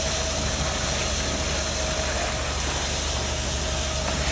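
Concrete pump truck running steadily while pumping concrete out through its boom hose: a continuous low mechanical rumble with a faint steady whine.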